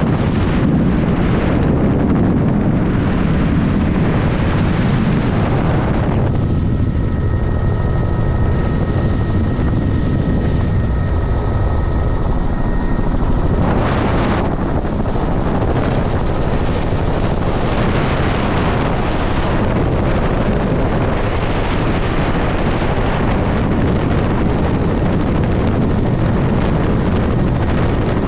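Helicopter rotor and engine noise heard on board in flight, a steady loud rush. From about six to fourteen seconds in, the hiss dulls and a faint steady whine shows through.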